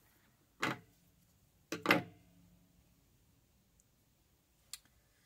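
A few short knocks and clicks from handling things on the work surface: one about a second in, two close together about two seconds in (the second the loudest, with a brief ring), and a light click near the end.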